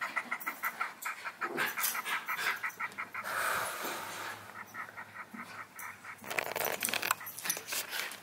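Havanese puppy and miniature schnauzer play-wrestling: rapid rhythmic panting, about five breaths a second, broken by longer breathy huffs, with scuffling and clicking of paws and mouths.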